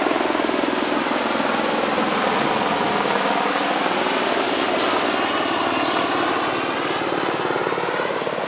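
Ocean surf breaking and washing through shallow water as a steady, loud rushing noise.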